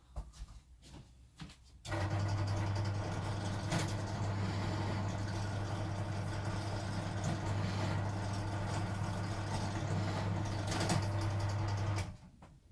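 Pillar drill switched on about two seconds in and running steadily for about ten seconds, deepening a magnet hole in a plywood vise jaw, then switched off near the end. A few small clicks come before it starts.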